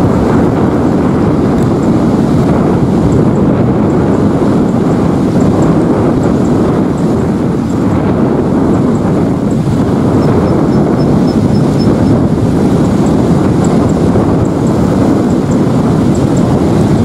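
Steady loud rush of an F-15 Eagle's twin jet engines on landing approach, mixed with wind buffeting the microphone. A few faint high chirps sit on top.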